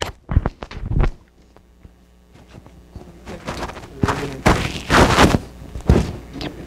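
Handling noise close to the microphone: irregular knocks, thumps and rustling. There are sharp knocks right at the start and about a second in, then a louder cluster of thumps between about four and six seconds in.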